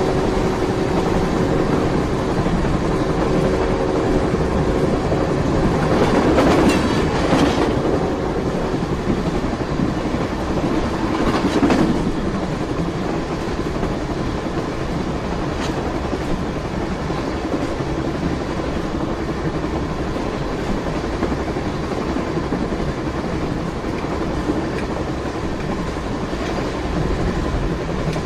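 A train running along the track: a steady rumble with wheel clatter over the rails, swelling louder briefly about seven seconds in and again about twelve seconds in, with a steady hum underneath for the first several seconds.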